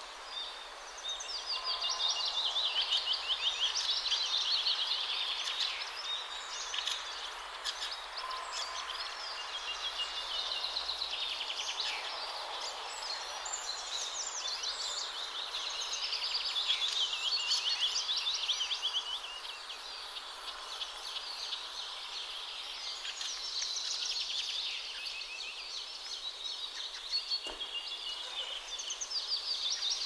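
Dawn chorus: several songbirds singing at once, with overlapping fast trills and chirps that never stop. A faint steady hum of distant urban traffic runs underneath.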